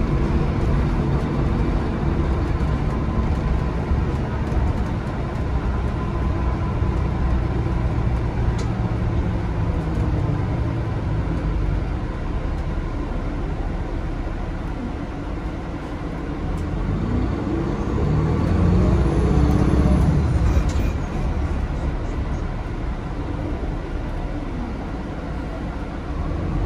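City bus heard from inside the cabin while under way, with a steady engine and road rumble. A little past the middle the sound dips, then the engine note rises and grows louder as the bus accelerates.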